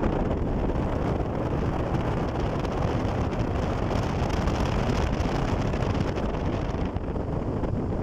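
Wind buffeting the microphone and road noise from a moving car, filmed out of an open side window: a deep, steady rush, its hiss growing a little brighter in the middle.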